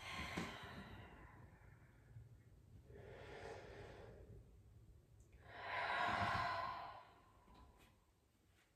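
A woman's slow, deep breathing: three audible breaths, the last, about six seconds in, the longest and loudest.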